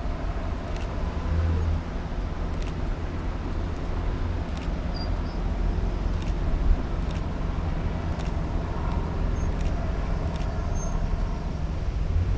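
Police patrol cars and a patrol SUV passing one after another, a steady low rumble of engines and tyres with no sirens.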